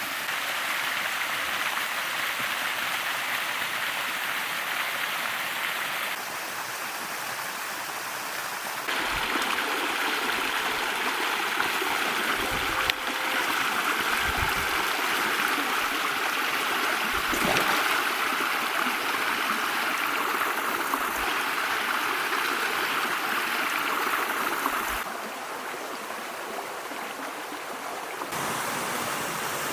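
Mountain stream rushing over rocks: a steady noise of running water that jumps abruptly in level a few times. A few brief low thumps sound in the middle.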